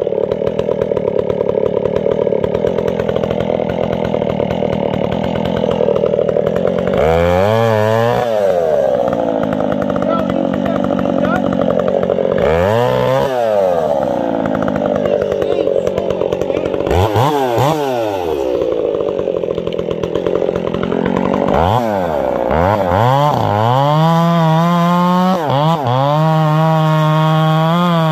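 Gas chainsaw with a hand-filed square-ground chain running throughout, its revs rising and falling several times. Near the end it is held at steady high revs, cutting into the trunk.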